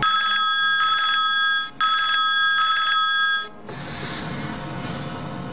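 LG mobile phone ringing with an incoming call: two long electronic rings with a short break between them, stopping about three and a half seconds in.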